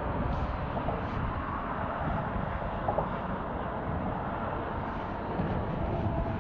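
Steady rumble of road traffic on the bridge, with no single distinct event standing out.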